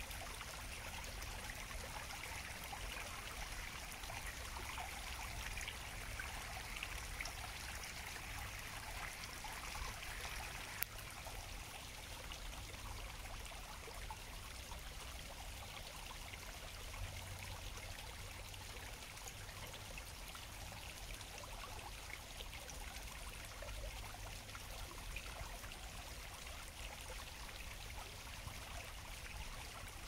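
Water trickling over stones, a steady splashing hiss that turns a little softer and more even about eleven seconds in.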